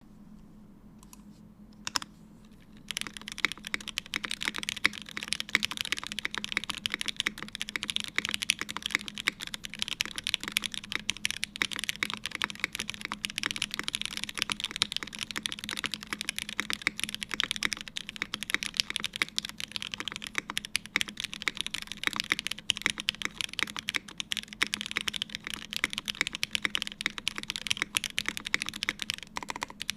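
Typing on a Haus top-mount mechanical keyboard with lubed Hyperglide Black linear switches, an aluminium plate and GMK ABS keycaps. A single keystroke comes about two seconds in, then steady, fast typing starts about a second later.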